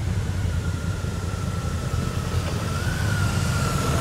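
Several large touring motorcycles passing slowly in a convoy, their engines running with a steady low rumble. Over them a thin, steady high tone is held, drifting slightly lower, with a brief wobble near the end.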